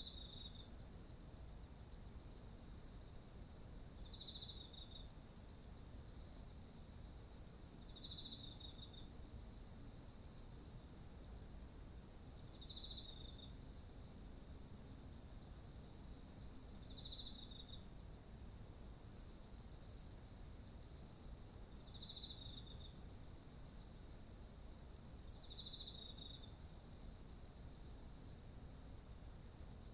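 Chorus of autumn insects singing. One keeps up a continuous high, steady trill. Another sings fast-pulsed phrases of about three seconds with short breaks, and a brief lower chirp comes roughly every four seconds.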